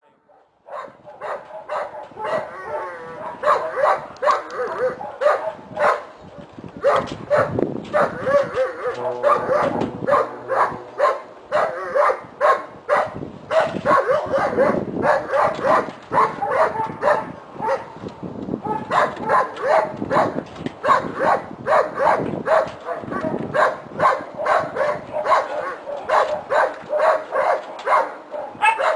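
Dogs barking and yipping, many short barks in quick, overlapping succession. They start about half a second in, with brief lulls twice.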